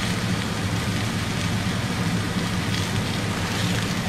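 Steady hiss with a low hum underneath, and faint crinkling of a plastic bag near the end as baby carrots are tipped into a roasting pan.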